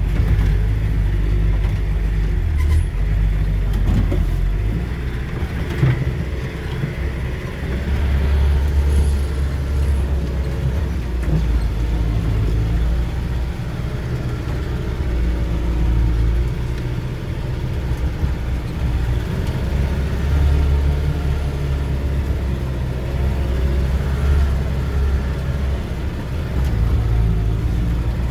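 Off-road vehicle's engine running and working, its drone swelling and easing every few seconds, with a few brief knocks in the first six seconds.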